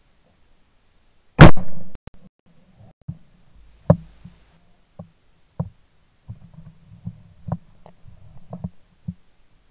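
A Hushpower-moderated .410 shotgun fires once about a second and a half in, a loud sharp report. It is followed by scattered knocks and a low rumble as the gun is handled, heard through the gun-mounted camera.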